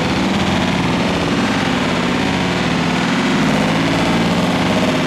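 Sustained rapid automatic fire from several machine guns, a minigun among them, shooting at once: a dense, continuous rattle of shots with no pause.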